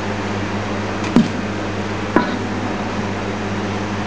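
Two sharp metal knocks about a second apart, from a metal ladle striking the rim of an aluminium ring cake pan as batter is ladled in, over a steady low hum.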